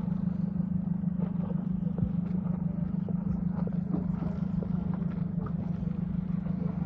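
Boat engine running steadily with a constant low drone, with faint clicks and clatter over it.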